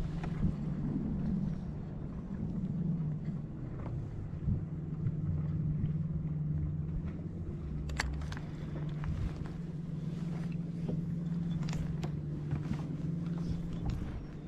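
MotorGuide Xi3 electric trolling motor humming steadily as it pushes the kayak across the lake, over water and wind rumble on the hull. A few light clicks come through, and the hum cuts off near the end.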